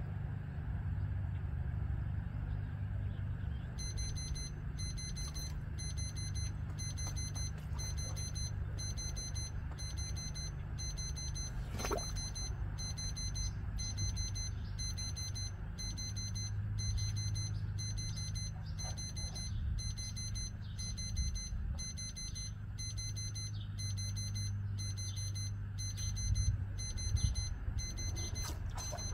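Digital timer alarm beeping in a steady run of high-pitched repeating beeps, starting about four seconds in: the signal that the timed cold plunge is up. A steady low hum runs underneath.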